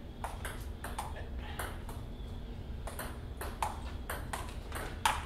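Table tennis rally: the ball clicking back and forth off the paddles and the table, a steady run of sharp ticks about two to three a second.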